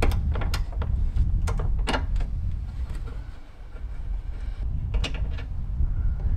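Scattered clicks and knocks from a ratcheting gear wrench working a bolt on a car's plastic factory airbox, over a low steady rumble.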